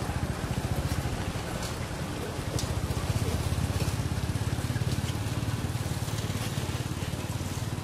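An engine idling, a steady low rumble with a fast even pulse that swells a little in the middle, with faint scattered ticks above it.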